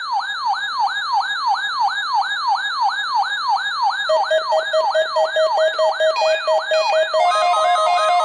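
Several weather alert radios sounding their alarms at once, set off by the NOAA Weather Radio tone alarm test. One radio gives a fast siren that sweeps down in pitch about three times a second. A second joins about four seconds in with a steady rapid beeping at a lower pitch, and more steady beeping tones join near the end.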